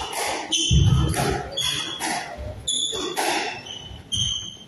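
Squash rally: the ball is struck and smacks off the walls about every half second, with a heavy thump about a second in. Court shoes give short, high squeaks on the hardwood floor as the players change direction.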